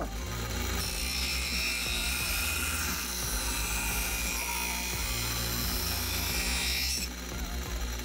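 Bench grinder running, its wheel grinding the edge of a masking-taped plastic lens piece with a steady hiss and whine that stops about seven seconds in. Background music plays under it.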